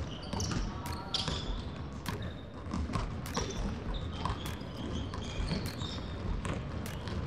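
Basketballs bouncing on a hardwood gym floor, the dribbling of more than one ball giving an irregular run of bounces, with brief high sneaker squeaks now and then.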